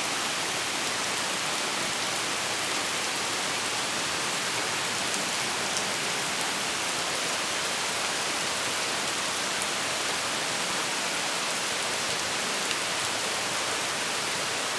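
Heavy rain falling steadily on pavement, leaves and garden beds: a dense, even hiss with faint ticks of single drops.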